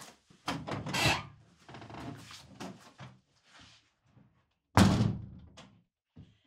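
Wood rubbing and knocking, then one loud, sudden thud near the end that dies away over about a second.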